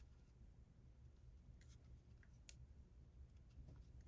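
Near silence: a low steady room hum with two or three faint ticks of a crochet hook working yarn.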